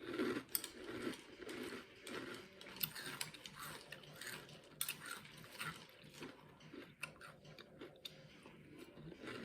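Close-up chewing of a mouthful of Cap'n Crunch cereal in milk: crunching in short bursts about every half second, with a few sharp clicks.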